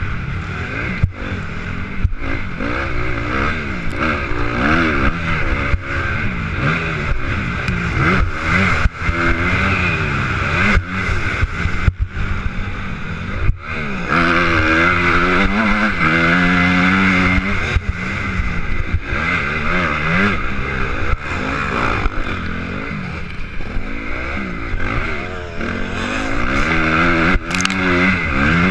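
Motocross bike engine at race pace, heard from a helmet-mounted camera, its pitch rising and falling over and over as the rider revs, shifts and rolls off for corners. A steady rush of noise lies under it, broken by brief knocks.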